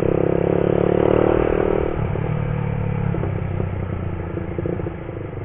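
Motorcycle engine running while the bike rides along, heard from the rider's seat, running evenly without sputtering now that the tank has just been refilled. It is loudest for the first two seconds, then the rider eases off and the engine note drops and grows quieter toward the end.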